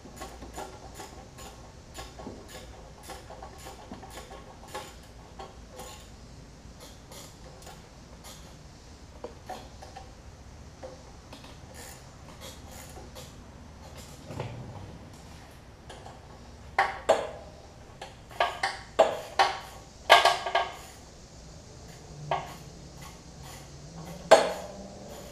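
Light metallic clicks and clinks of hand tools and bolts being worked on a small generator engine. A run of louder clinks comes about two-thirds of the way in, and one more near the end.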